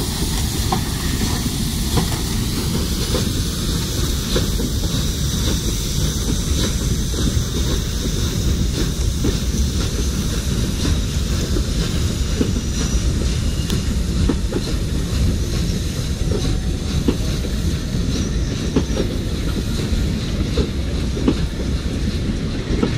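PKP class Ol49 steam locomotive and its passenger coaches rolling past: a steady low rumble with frequent clicks of the wheels over the rail joints.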